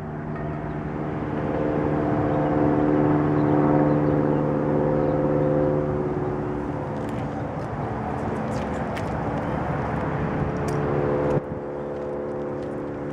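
Kawasaki KLR single-cylinder motorcycle engine turning over with a steady hum; it grows a little louder over the first few seconds, eases off, and changes abruptly about eleven seconds in.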